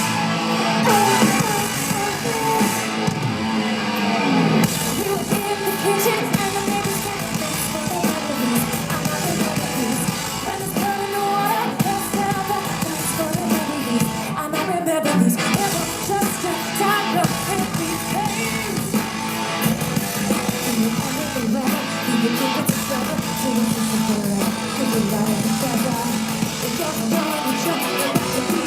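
Loud live noise-pop band music from a festival stage: distorted guitar and heavy beats, with a woman singing over them.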